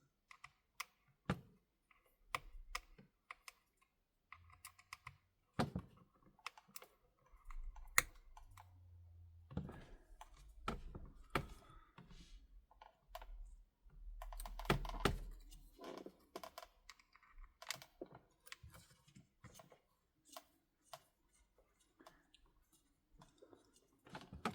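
Irregular small clicks and taps of hand tools and phone parts handled at a repair bench while the display flex cables are worked loose, with a few low bumps from handling.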